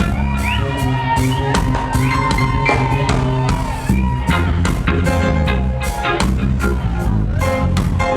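Live band playing an instrumental passage, with drum kit, bass and electric guitar and no vocals.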